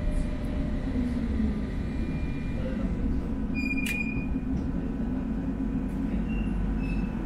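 Tram running along its line with a steady low rumble, and a brief high beep with a click about four seconds in.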